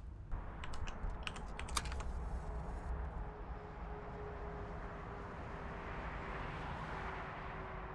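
A quick run of light, sharp clicks and taps, like keys pressed at a shop till, over the first three seconds. Then a steady low rumbling background noise with one faint held tone.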